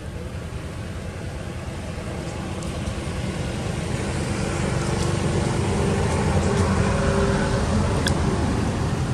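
Low rumble of a passing motor vehicle, building gradually and loudest around six to seven seconds in, with a single sharp click just after eight seconds.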